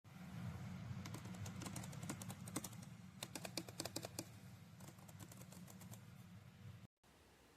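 Typing on a ProtoArc EK01 Plus split ergonomic keyboard: irregular runs of key clicks over a low steady hum, then a sudden stop near the end.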